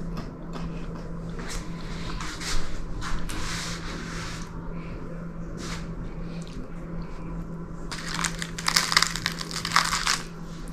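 Crinkling and rustling of baking paper under a baked puff-pastry roast as it is handled, in short bursts that are loudest about eight to ten seconds in, over a steady low hum.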